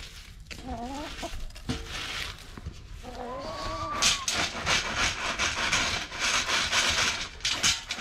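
Hens clucking: a short call about a second in and a longer rising call around three seconds. Then a dry rustling and rattling of straw and feed pellets being cleared out of a galvanized hanging chicken feeder's pan, the loudest part, which stops just before the end.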